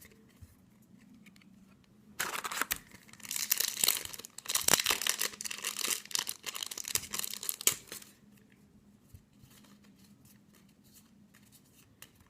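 A Yu-Gi-Oh! booster pack's foil wrapper being torn open and crinkled: a crackling run of rips and crinkles starting about two seconds in and lasting about six seconds.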